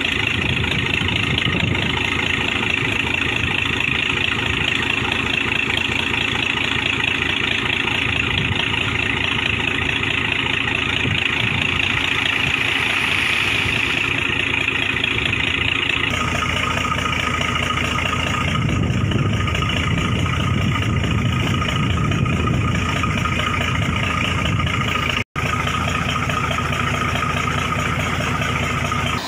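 Borewell-cleaning air compressor's engine running steadily, a loud continuous drone with hiss. The sound changes character about 16 seconds in and cuts out for an instant near 25 seconds.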